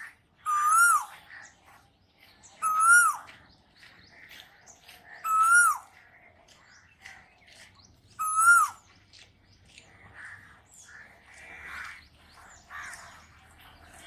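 Male Asian koel calling: four loud whistled notes, each rising then falling, about every two and a half seconds, stopping about halfway through. Fainter chirps of other birds fill the rest.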